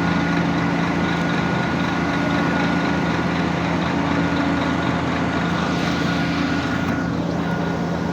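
Steady engine drone of a running vehicle or machine, a constant low hum over broad noise, with a higher whine that fades out about seven seconds in.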